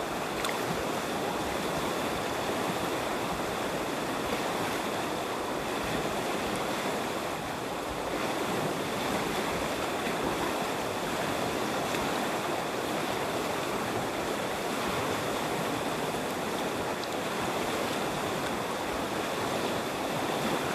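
River water rushing steadily, an even, unbroken wash of noise, with a faint steady high tone running through it.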